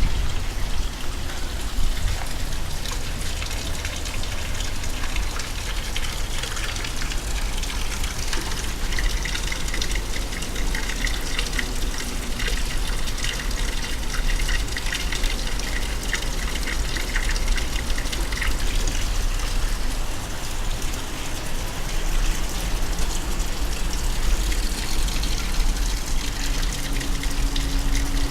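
Water from a decorative indoor fountain falling and splashing steadily.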